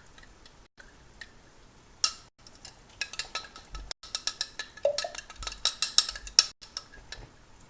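Raw eggs being whisked by hand in a cup, the utensil clicking rapidly against its sides. The whisking starts about two seconds in, breaks off briefly, and stops near the end.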